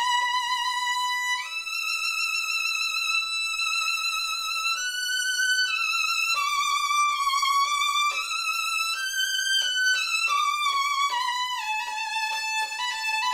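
Solo violin playing a slow, singing melody with vibrato: a long held note a second or so in, then a falling phrase near the end. The bow pressure is held at a middle ground between the extremes, for a full, projecting tone rather than a strangled one.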